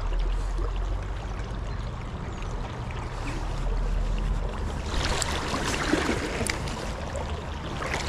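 Small river flowing and rippling in a steady wash, under a low steady rumble. A few light clicks come a little past halfway.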